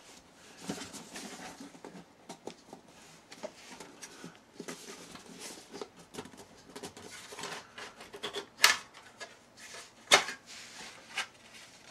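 Plastic case of a Philips/Fluke PM2525 bench multimeter being handled and worked loose, with scattered light clicks and scrapes. Two sharp, loud clicks come late, about a second and a half apart, as the cover snaps free.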